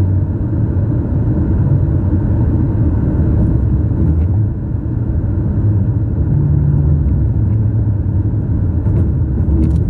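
Car tyres running over a series of raised transverse rumble strips painted across the road, heard from inside the cabin as a low rumbling hum over the road noise. The hum shifts up in pitch for about a second past the middle.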